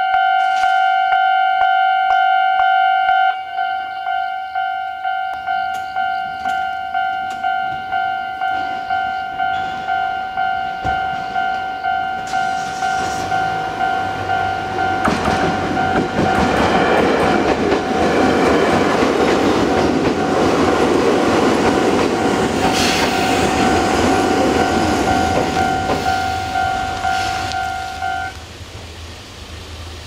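A level-crossing warning bell rings in a steady, rapid two-tone pattern and gets quieter about three seconds in. A Chichibu Railway train passes through the crossing from about twelve seconds in until near the end. The bell stops shortly before the end as the train clears and the barriers lift.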